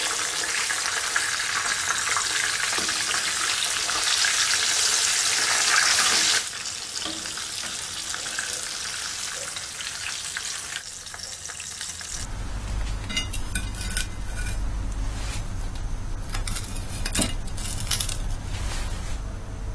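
Whole sea bream deep-frying in hot oil in a pan: a loud steady sizzle that drops sharply about six seconds in, then carries on more quietly. In the second half a low hum takes over, with a few light clicks of metal tongs as the fish is set on a plate.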